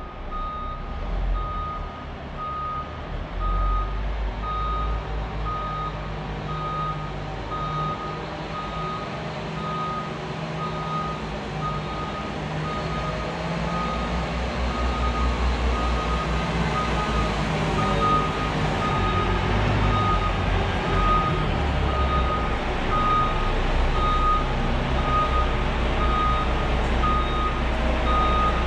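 Reversing alarm of a Liebherr LTM mobile crane beeping steadily, about one and a half beeps a second, over its diesel engine running low. Both grow louder as the crane backs up toward the camera.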